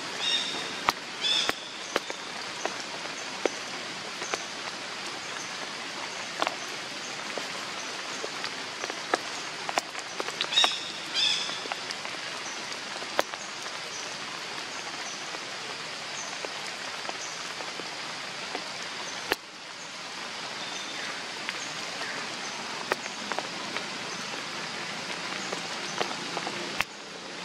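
Steady forest background hiss with scattered sharp clicks, and a few short high chirps about a second in and again around ten to eleven seconds in.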